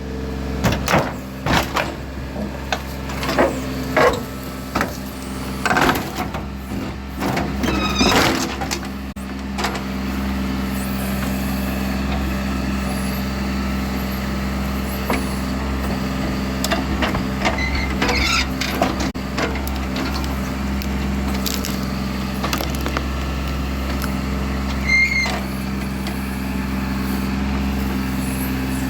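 The B26's engine running with a steady hum. A series of loud, irregular pops and bangs comes over it in the first ten seconds, then it settles into steady running.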